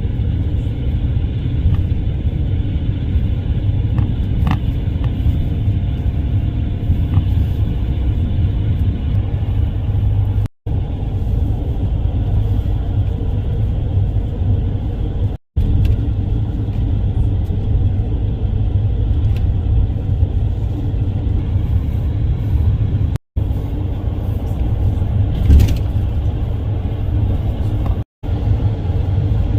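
Steady low rumble of a road vehicle on the move, broken four times by brief drops to silence.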